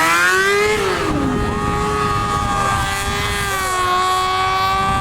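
Sport motorcycle engine revving hard, its pitch climbing until about a second in, dropping briefly, then held at steady high revs.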